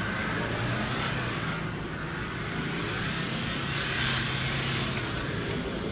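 Nissan Patrol SUV's engine running steadily under load as it crawls up a steep grassy slope, swelling slightly about four seconds in.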